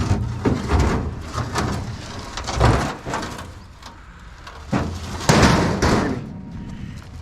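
A heavy steel scrap piece being walked end over end and rolled up onto a trailer: a run of metal knocks and clunks, then a louder scrape about five seconds in as it slides across metal.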